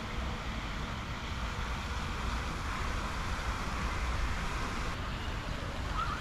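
Water from a tall fountain jet splashing steadily into a pond, an even hiss of falling spray over a low rumble. A brief faint chirp sounds near the end.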